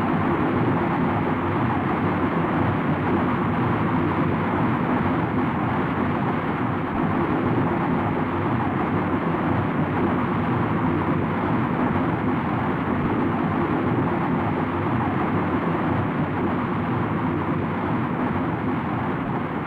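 RL-10 liquid-hydrogen/liquid-oxygen rocket engine test firing: a steady, unbroken rushing noise of the exhaust, with no change in level.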